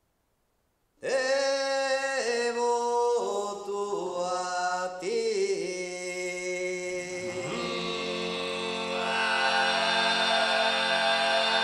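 Sardinian canto a tenore, four male voices unaccompanied. About a second in, a solo lead voice sings a stepping phrase; near the two-thirds mark the other voices enter beneath it with a low steady drone, filling out the chord.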